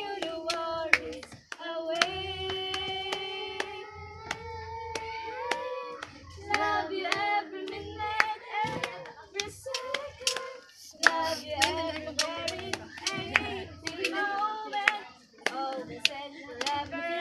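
A girl singing a melody, holding some notes long, with sharp hand claps keeping a quick beat under the song.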